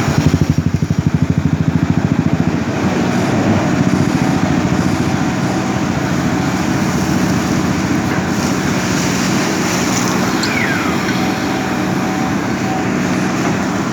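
JCB backhoe loader's diesel engine running under work, throbbing rapidly for the first two and a half seconds and then settling into a steady note. A brief high squeak comes about ten seconds in.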